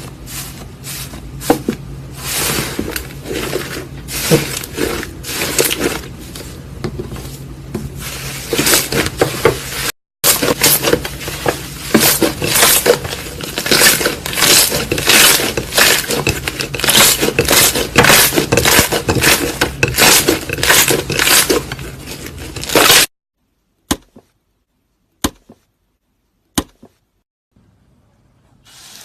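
Slime being squeezed and worked by hand, giving dense crackling and popping clicks. There is a brief gap about ten seconds in. Near the end the crackling stops, leaving a few single pops.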